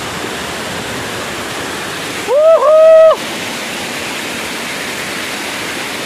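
Waterfall rushing steadily at close range. About two and a half seconds in, one loud pitched call rises, dips briefly and holds for under a second.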